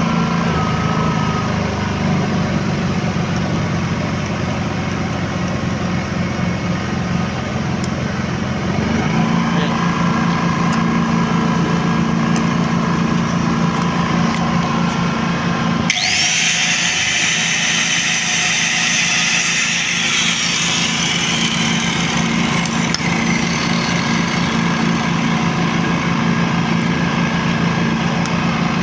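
Tsuzumi TIG5000iSDF inverter generator running steadily on LPG; its engine hum steps up about nine seconds in. About halfway through, an electric angle grinder powered from it spins up with a rising whine and runs at speed, loading the generator.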